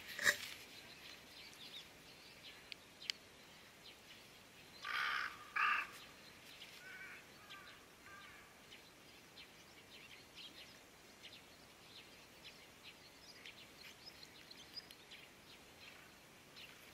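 Two harsh crow caws about five seconds in, over faint scattered chirping of small birds, with one sharp click right at the start.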